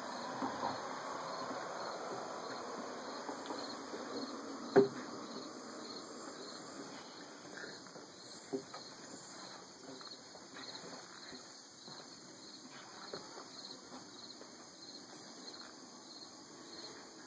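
Boston terrier puppies scuffling and playing with a cardboard tube on a quilt and wooden deck, with a sharp knock about five seconds in and a fainter one a few seconds later. Insects chirp throughout in a steady, even pulse, about two a second.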